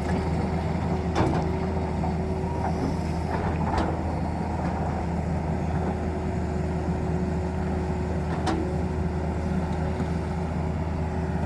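Excavator's diesel engine running steadily, with three sharp knocks spread through it.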